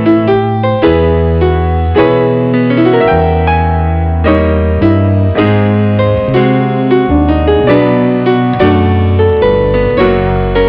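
Instrumental keyboard music with piano-like notes: a melody with fresh notes about every half second over held bass notes that change roughly every second.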